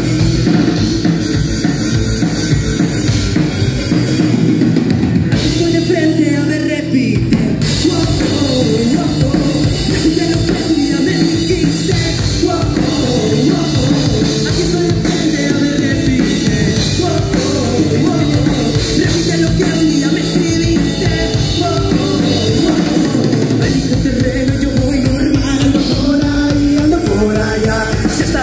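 Live rock band playing loud, with a drum kit driving the song. About four seconds in, the bass drops out for a few seconds before the full band comes back in.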